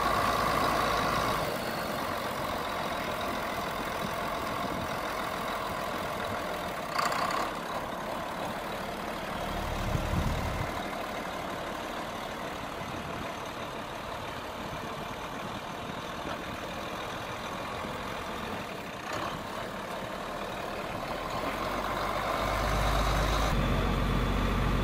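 John Deere 4440 tractor's six-cylinder diesel engine running steadily, getting louder near the end.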